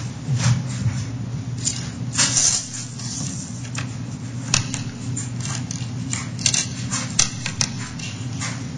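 Coins, dimes and pennies, being picked up and set down on a paper coin template on a table, giving irregular small clicks and scrapes over a steady low hum.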